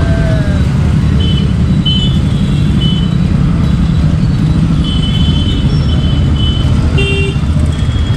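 Motorcycle engines running at low speed in slow, stop-and-go traffic, with a string of short horn beeps about a second in and another run of beeps about five to seven seconds in.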